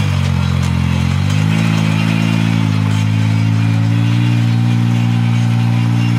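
Side-by-side UTV engine running at low revs as the vehicle creeps along, its pitch stepping up slightly with small throttle changes.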